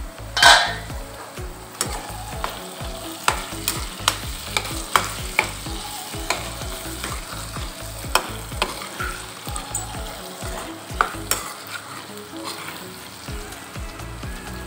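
Slotted spatula stirring and scraping diced potatoes, peas and onions frying in oil in a kadhai, with a steady sizzle and repeated clinks of the spatula against the pan. A louder clatter comes about half a second in.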